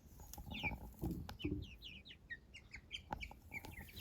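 Young chickens peeping: a run of short, high chirps, each falling in pitch, several a second, with a few soft clicks among them.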